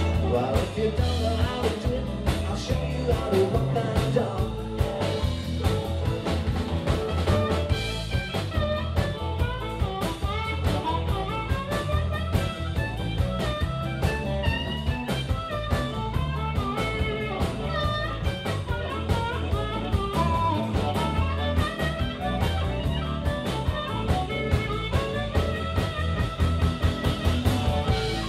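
Live blues band playing an instrumental break: a harmonica solo with bending notes, over electric guitar, keyboard and a drum kit keeping a steady beat.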